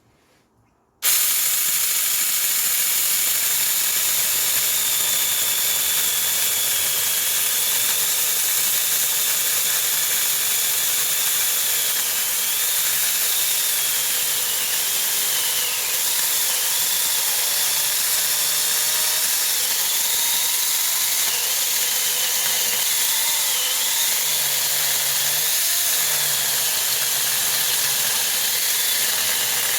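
Saker 20-volt cordless mini chainsaw running and cutting through a small Christmas tree trunk: a steady high motor whine and chain noise that starts abruptly about a second in, its pitch dipping and wavering as the chain bites into the wood.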